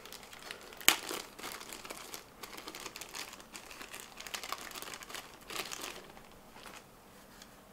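Clear plastic packaging bag crinkling as it is pulled open and worked off a small handheld tire pressure gauge, with one sharp crack about a second in. The crinkling thins out about six seconds in.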